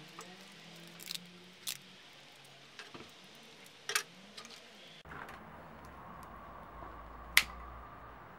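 Light handling noises as hands wrap tape around a sparkler: a few short clicks and taps in the first half. After a cut, a faint steady background and one loud sharp click near the end.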